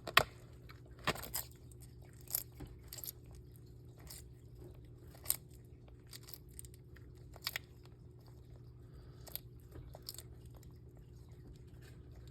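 Bearded dragon chewing a hard-shelled patent leather beetle: irregular sharp crunches a second or two apart, the loudest just after the start.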